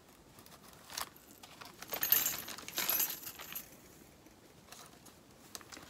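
Small craft decorations being handled and sorted: a soft click about a second in, then a short spell of rustling and light clinking, with a few faint ticks afterwards.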